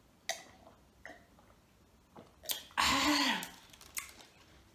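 People drinking from glasses, with small clicks and swallows, then one short vocal sound after the drink about three seconds in, its pitch rising and falling.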